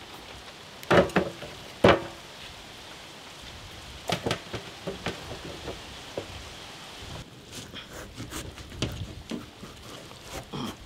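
Knocks and taps of raw mutton pieces and palm-leaf stalks being handled on a metal tray: two loud knocks about a second apart, then scattered lighter taps and clicks.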